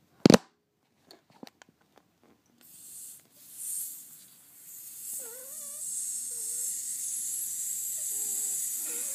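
A sharp knock just after the start, then from about two and a half seconds in a child's pretend snoring: a long, steady, breathy hiss with faint wavering voice sounds over it.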